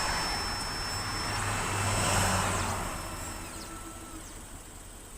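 Xhorse Dolphin XP-005 key cutting machine's motors whirring as it moves its carriage into position. The whir swells about two seconds in and then fades, with a thin high whine that stops partway through.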